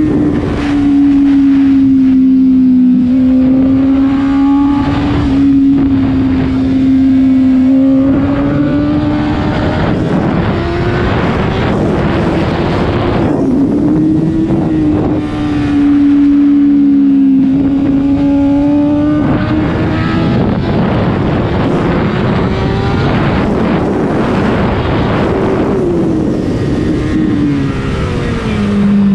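Inline-four engine of a 2014 Honda CBR1000RR with an aftermarket Two Brothers exhaust, ridden hard around a race track. Its note holds fairly steady with small rises and dips, under heavy wind rush.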